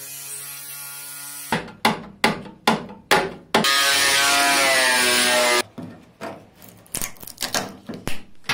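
Power tools stripping paint and rust from a car's steel body panels in quick cuts: a steady motor whine, then a run of sharp grinding bursts, then an angle grinder grinding steadily for about two seconds. In the last few seconds come uneven scraping strokes.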